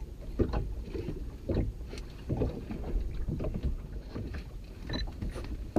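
Wind rumbling on the microphone and water lapping against a small boat, with scattered light knocks.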